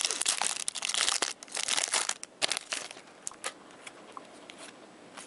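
A trading-card pack's wrapper crinkling as it is torn open and the cards handled, dense and crackly for about the first three seconds. Then a few light card clicks over a steady hiss of hard rain.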